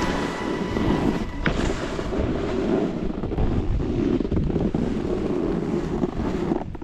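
Wind buffeting the microphone while a snowboard rides down a firm, hard-packed groomed slope, with a steady rushing scrape of the board over the snow.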